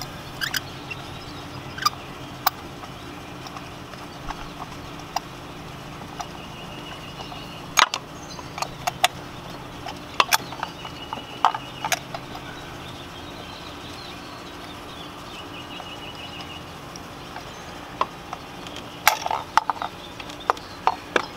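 Scattered clicks and light metallic knocks of a spark plug socket and extension being turned and handled by hand, unscrewing a loosened spark plug, irregularly spaced with a cluster near the end.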